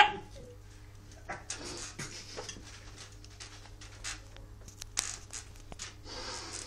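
Muffled mouth and breath sounds from people who have just taken a spoonful of salt: short puffs, sniffs and stifled laughter, with scattered small clicks and taps. A longer breathy exhale comes near the end.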